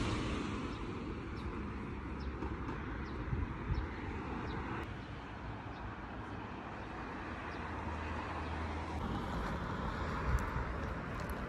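Outdoor city ambience: a steady hum of road traffic with faint noise of the street.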